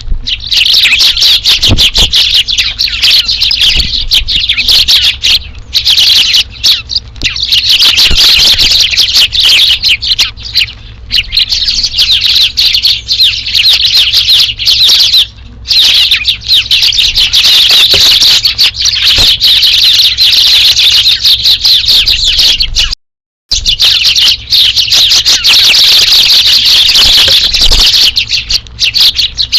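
A flock of Eurasian tree sparrows chirping busily and continuously, many calls overlapping. The sound cuts out completely for about half a second roughly 23 seconds in.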